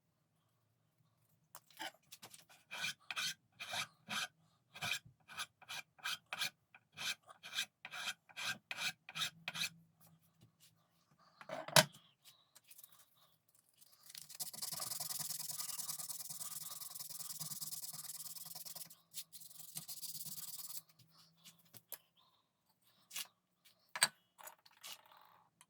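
Hand filing strokes on the gunstock, about two a second for several seconds. Then a single sharp knock, followed by about seven seconds of steady hissing noise that cuts off suddenly, and a few light clicks near the end.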